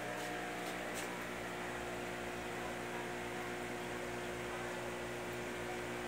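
Steady electrical hum of running aquarium equipment, several tones held at fixed pitches.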